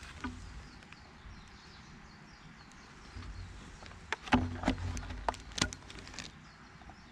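A cluster of sharp knocks and clicks, some with a dull thud beneath, about four to six seconds in, over a faint steady outdoor background.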